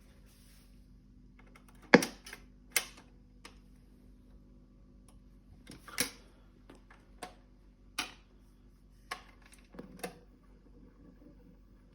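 Irregular sharp clicks and knocks from a Dansette Conquest Auto record player being handled and set up, the loudest about two seconds in, over a low steady hum.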